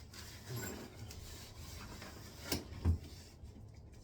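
Rubbing and scraping from cleaning up around a toilet during a wax ring replacement, with two sharp knocks close together past the middle.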